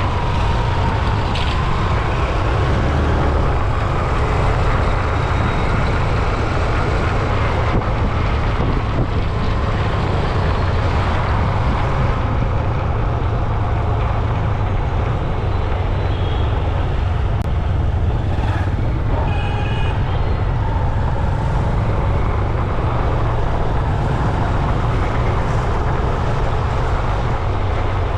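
Road traffic noise from cars and trucks over a constant heavy low rumble, with a few short high tones about two-thirds of the way in.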